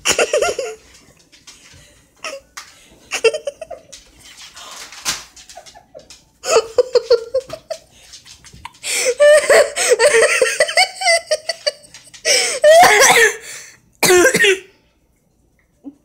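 A person laughing hard in repeated fits that break into coughing, the longest and loudest fits in the second half, ending abruptly.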